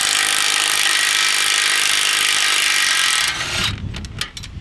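Cordless 20V DeWalt impact wrench runs steadily for about three seconds, spinning out a 21 mm brake caliper bolt. It then stops, followed by a few sharp clicks and knocks.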